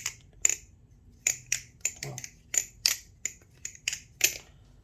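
Aluminium-handled Baliplus BRS Barebones clone balisong being flipped, its handles and blade clinking together in a string of sharp metallic clacks, a few a second: the clunky, audible action of this knife.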